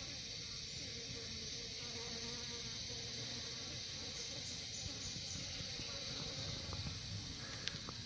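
Flies buzzing around dead mice, steady and fairly faint, over a constant high insect hiss.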